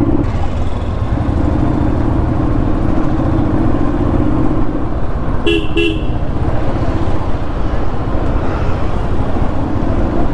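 Motorcycle engine running steadily while riding. About halfway through, a horn gives two short beeps.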